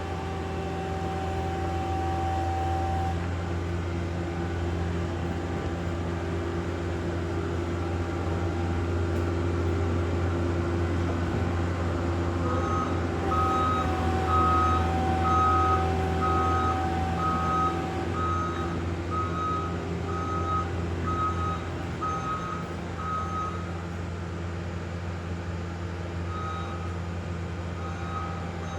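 Diesel engine of a compact earthmoving machine running steadily under work. Partway through, its backup alarm beeps about once a second for around ten seconds as it reverses, then starts again near the end.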